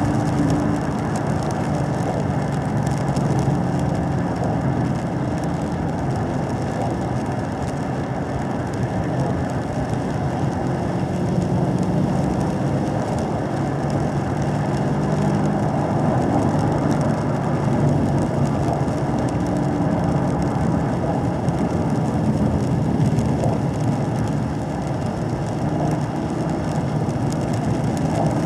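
2017 Camaro SS 1LE's 6.2-litre LT1 V8 running steadily at part throttle around 2,500 to 3,000 rpm, heard from inside the cabin, under a constant hiss of tyres on the wet track.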